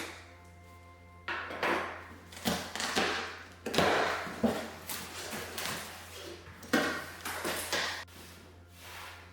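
Cardboard packaging of a PC case being handled during unboxing: a run of irregular scrapes, slides and knocks, loudest about four seconds in and again near seven seconds. Quiet background music with steady held notes plays underneath.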